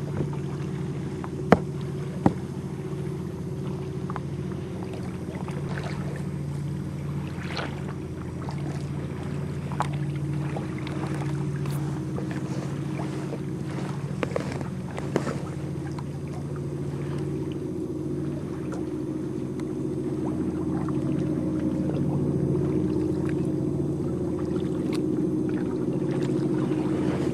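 Sea kayak on the move: water lapping and splashing at the hull and paddle, with two sharp knocks on the kayak near the start, over a steady low hum.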